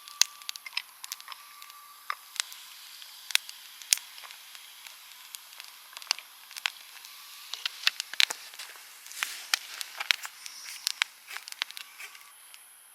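Food frying: a steady sizzle with frequent sharp spattering pops, which dies down near the end.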